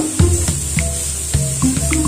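Background music with a steady beat and bass notes.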